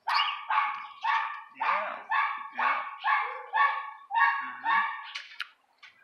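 An animal calling over and over, about two short calls a second, each starting sharply and fading, stopping near the end.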